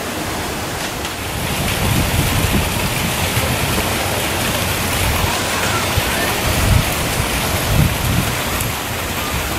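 Steady rushing of water from a small waterfall pouring into a pool, with uneven low rumbles mixed in.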